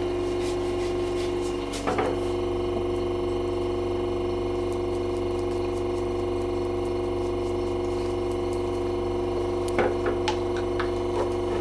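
Steady hum of a workshop machine's electric motor, with a few light wooden knocks and taps about two seconds in and again near the end as heel-lift pieces are set down on a wooden rack.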